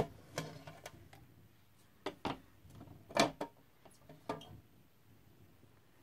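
Irregular light clicks and knocks of a clear plastic pet enclosure and its vented plastic lid being opened and handled, the loudest knock about three seconds in.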